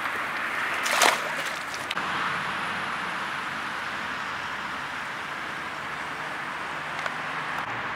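Steady outdoor noise of wind and road traffic, with a short splash about a second in as a pike is released into the canal.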